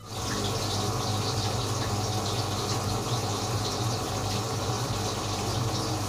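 LG front-loading washing machine on its spin-only program: the drum turns while the drain pump runs, pumping the water out of the load. The hum and rush of water are steady.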